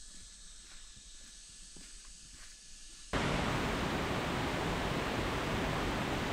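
Quiet forest ambience with faint light ticks, then about three seconds in an abrupt switch to a loud, steady rushing noise.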